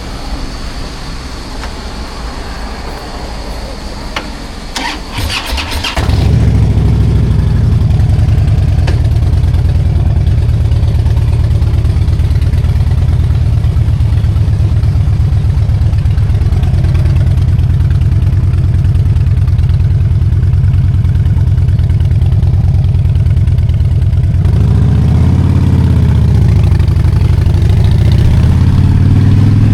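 Harley-Davidson Dyna Street Bob V-twin starting: a few clicks, then the engine catches about six seconds in and settles into a steady idle. Near the end the revs rise and fall once.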